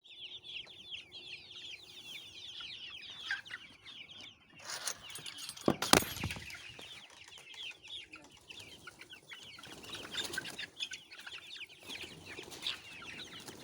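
A flock of chickens in a poultry farm: many short, high calls and clucks overlapping without pause. Two sharp knocks come about six seconds in.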